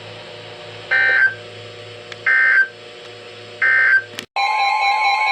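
Three short bursts of EAS digital data, the end-of-message code that closes an Emergency Alert System warning, sent three times about a second and a half apart over a low steady hum. About four seconds in, a click cuts to a steady alert tone with a repeating warble.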